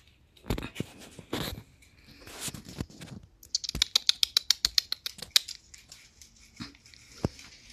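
A puppy eating dry kibble from a food bowl: a fast run of crisp crunching clicks, about ten a second for a couple of seconds around the middle, among scattered knocks and rustles of puppies shuffling on the bedding.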